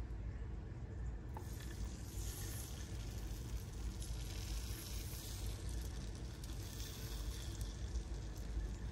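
Beaten eggs sizzling as they are poured onto the hot, avocado-oil-sprayed plate of a Presto Stuffler waffle maker, a steady hiss that comes in after the first second or so.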